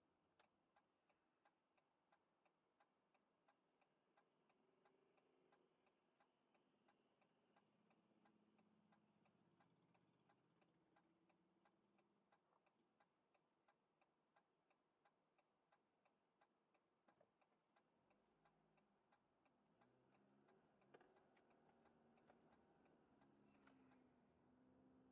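Car turn-signal indicator clicking, a faint, steady tick at about two a second, which stops near the end.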